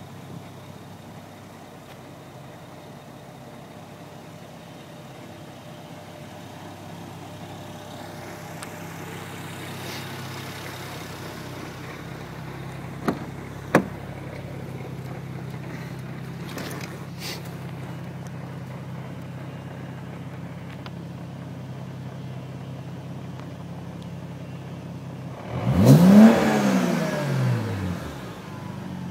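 BMW 3 Series coupe's engine idling steadily, with two sharp clicks about halfway through as the driver's door is opened. Near the end the engine is revved twice in quick succession, the pitch rising and falling with each blip.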